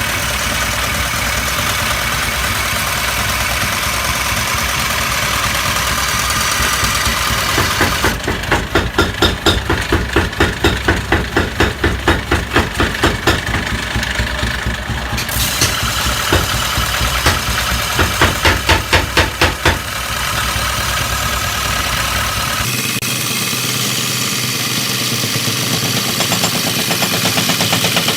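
A motor-driven workshop machine running steadily, with two stretches of rhythmic strokes about two or three a second.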